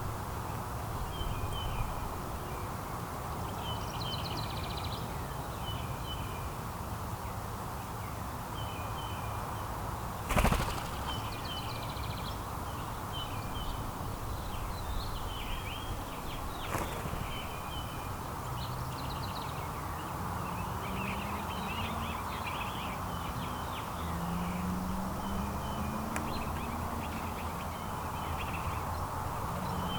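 Small songbirds chirping in short calls throughout, over steady outdoor background noise. About ten seconds in there is one sudden, brief, loud burst of noise.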